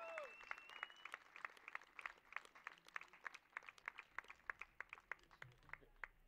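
Sparse applause from a small audience: scattered individual hand claps, several a second, thinning out and fading away near the end.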